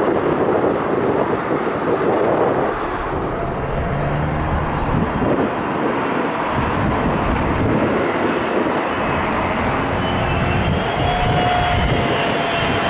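Jet airliner approaching to land, its engine noise growing, with a whine of thin tones coming in near the end. Wind buffets the microphone.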